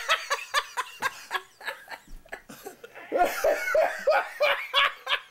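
Several people laughing in quick ha-ha bursts, getting louder about three seconds in.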